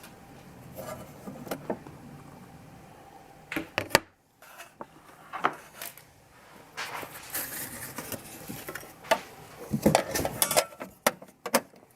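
Jura Impressa XS9 bean-to-cup coffee machine running with a low steady hum that cuts off about four seconds in, followed by scattered clinks and knocks of cups and crockery being handled.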